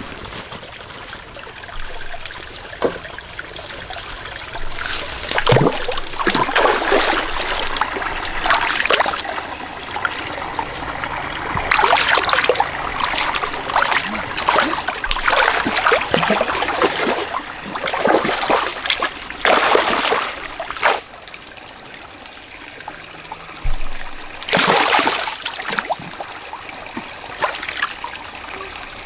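Muddy water splashing and sloshing in irregular bursts, with trickling between them, as mud and water are stirred up by hand.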